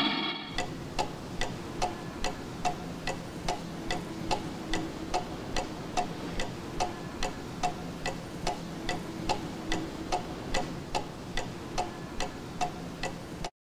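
Clock ticking steadily, about two and a half ticks a second, over a faint low hum; the ticking cuts off suddenly near the end.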